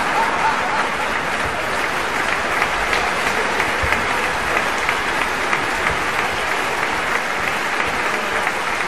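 Concert audience applauding steadily, many hands clapping into one dense, even wash.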